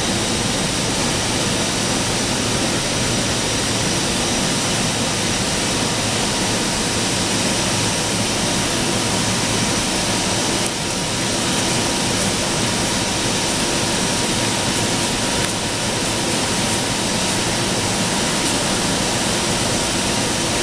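Steady, loud rushing noise of workshop machinery running, with a faint steady whine through it. A couple of faint clicks come about halfway and about three-quarters through.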